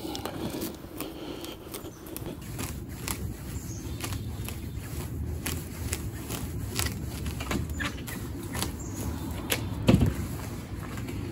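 Raking through the bare root ball of a cherry tree: a run of scratching, crackling ticks as fine roots and soil are combed loose, over a steady low rumble, with one louder knock about ten seconds in.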